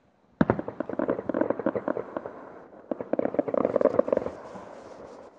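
Fireworks going off. A sharp bang about half a second in is followed by a dense run of rapid crackling pops for about two seconds. After a short lull a second run of rapid pops comes, then it fades away.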